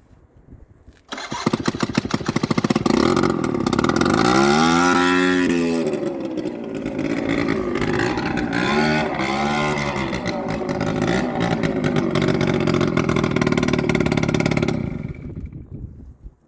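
Hyosung 50 cc two-stroke scooter engine starting about a second in and running loud and rattly, revved up and back down twice, then cutting out near the end. It sounds too loud, which the owner puts down to something wrong with the exhaust, perhaps a missing exhaust gasket.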